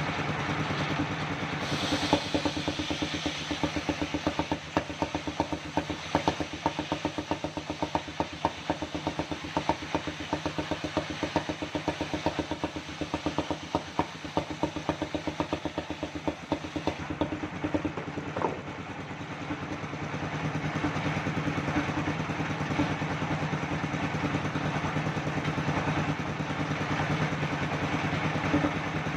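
Engine-driven circular sawmill running steadily, with a dense rapid clatter from about two seconds in until a short dip near eighteen seconds, then running on evenly.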